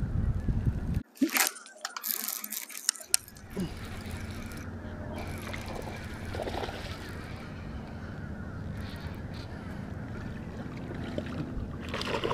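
Wind rumbling on the microphone, then a couple of seconds of sharp knocks and rattles as a small bass is reeled in and landed in the boat. After that comes a steady low hum.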